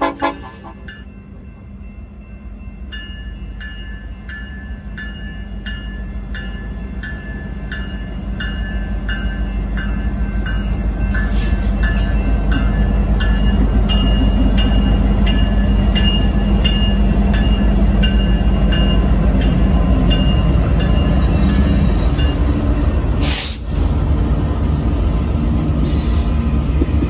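A loaded BNSF coal train's diesel locomotives grow steadily louder as they approach and pass close by, their engines humming over a deep rumble. The loaded coal hoppers then roll past with steady wheel-on-rail noise. A faint high ring repeats at a steady beat through most of the passage.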